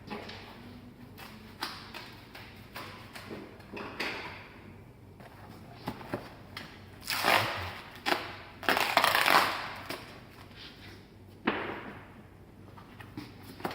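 Handling noise from wrapping bicycle parts in packing material: scattered knocks and clicks, with two louder rustling, crinkling bursts about seven and nine seconds in.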